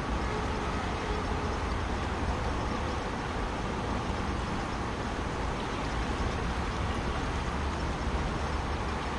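Steady rushing of a fast-flowing, choppy river.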